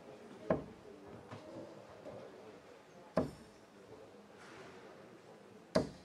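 Three steel-tip darts thudding one by one into a Winmau Blade sisal bristle dartboard, about two and a half seconds apart.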